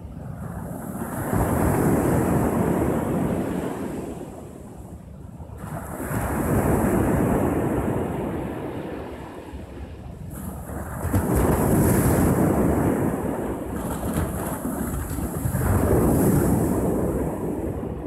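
Small sea waves breaking and washing up a sandy beach, the surf swelling and ebbing four times, about every four to five seconds.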